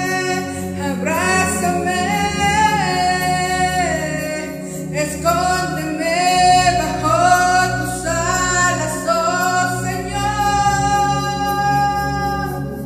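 A woman singing a Spanish-language worship song over a recorded karaoke backing track, with several long held notes.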